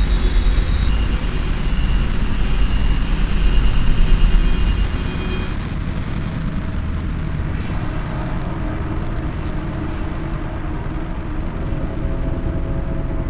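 Eerie time-stretched soundscape presented as sounds from Jupiter: a loud, dense rumbling noise drone with faint steady tones above it, easing slightly about five seconds in.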